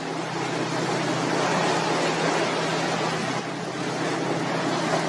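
Steady rush of wind and sea water on the deck of a moving patrol vessel, over the low, steady hum of the boat's engine.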